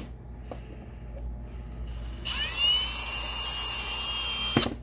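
A small high-speed power tool whines up to speed about two seconds in, runs at a steady high pitch, and cuts off sharply near the end.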